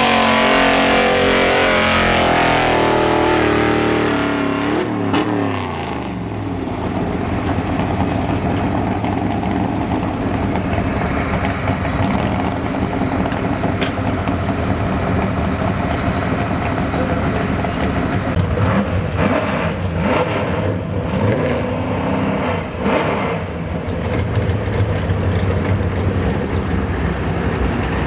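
Gas V8 engine of a 4x4 Ford pickup pulling truck running at full throttle under sled load, its revs falling away about four to five seconds in as the pull ends, then settling to a steady idle.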